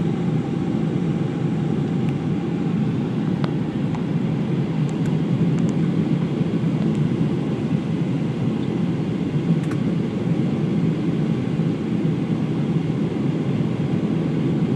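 Steady cabin roar inside a Boeing 737-700 on approach with flaps extended: the CFM56-7B engines and the airflow over the fuselage heard through the cabin wall, a deep even rumble with a faint steady hum above it.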